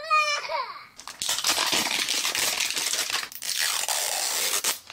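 Clear tape and plastic wrap being peeled off a plastic Mini Brands capsule ball: a crinkling, tearing rustle that starts about a second in.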